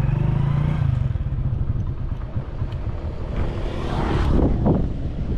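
A vehicle's engine running as it drives off along a jungle track, with a louder rush swelling up about four seconds in.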